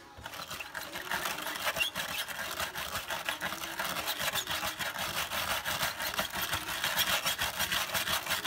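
Wire brush scrubbed rapidly back and forth across a car body panel coated in liquid spray wrap (peelable paint), a harsh scratching rasp of many quick strokes. It is a scratch and durability test of the coating.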